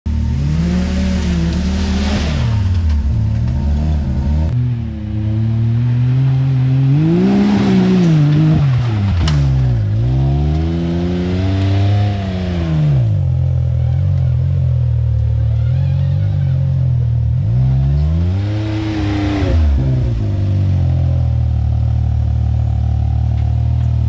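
Off-road vehicle engine running and revving, its pitch rising and falling back about four times, then holding a steady note near the end.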